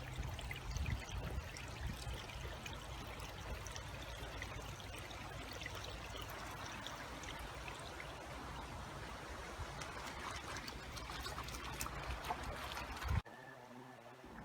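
Steady rush of flowing river water, which cuts off abruptly about a second before the end.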